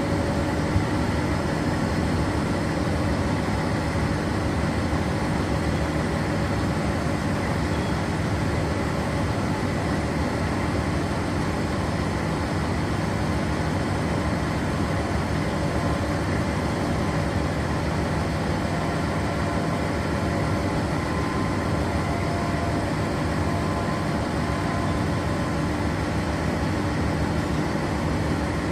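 Trenitalia D445 diesel locomotive idling steadily at close range, a constant engine drone, while passenger coaches roll slowly past on the adjacent track.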